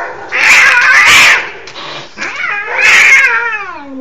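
Cats caterwauling in a fight: a loud, harsh screech lasting about a second, then a long drawn-out yowl starting about two seconds in that falls in pitch at the end.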